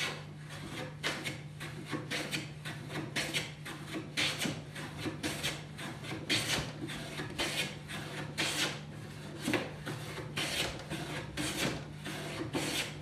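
A hand plane taking repeated strokes along a rough-sawn timber board, each pass a short shaving swish of the blade cutting wood, about two strokes a second. It is flattening the board's first face.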